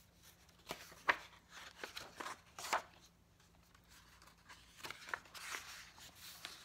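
Paper rustling and light clicks as a picture book's page is turned and the book is handled, in two short clusters.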